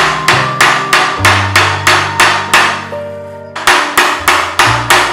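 Hammer tapping steel nails into a pine block, quick even blows about three a second, with a brief pause about three seconds in. Background music plays underneath.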